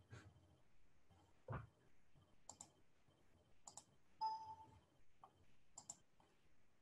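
Near silence with a few faint, scattered clicks, and a brief faint tone about four seconds in.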